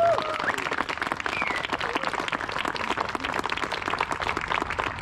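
Crowd applauding with steady, dense clapping, with a few whoops and cheers at the very start.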